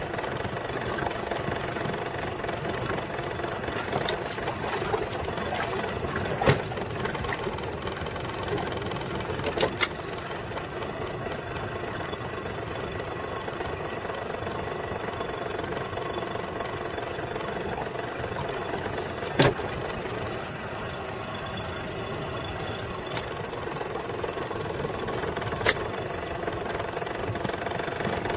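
Boat motor running steadily at low speed, a constant mechanical hum, with a few sharp clicks or knocks now and then.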